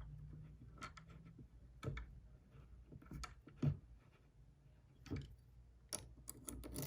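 Irregular light clicks and knocks of small objects being handled and set down, with several in quick succession near the end.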